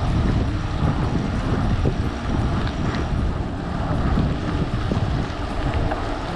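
Wind buffeting the microphone of a handlebar-mounted camera on a moving mountain bike, a heavy, uneven rumble. It is mixed with the hiss of tyres rolling on wet asphalt.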